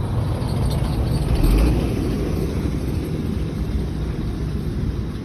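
A motor vehicle passing close by on the road, a steady low rumble that swells to its loudest about a second and a half in, then fades.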